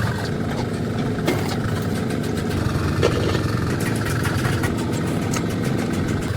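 An engine idling steadily, with scattered light clicks over it.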